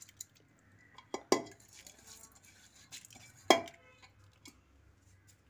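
Several sharp metal clinks and knocks of steel vessels against a stainless-steel pressure cooker as washed rice and fenugreek are put into it. The loudest knock comes about three and a half seconds in.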